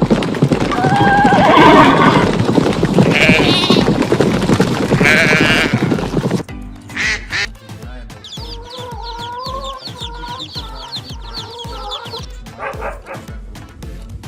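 Animal calls over background music with a steady low beat. A loud, noisy stretch of calls gives way about six seconds in to quieter pitched calls with a fast high trill.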